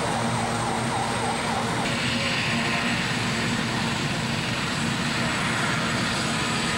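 A steady roar of engine noise, with a faint murmur of voices in the first second.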